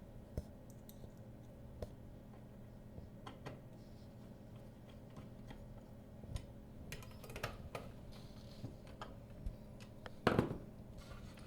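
Scattered small clicks and taps of plastic traverse curtain-track parts, such as the belt splice clip, being handled and fitted. A faint steady hum runs underneath, and there is a louder clatter near the end.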